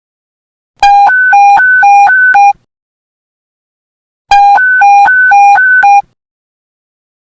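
Police panic-button alert tone: a fast electronic two-tone beep switching rapidly back and forth between a lower and a higher pitch, sounding in two bursts of under two seconds each, about three and a half seconds apart.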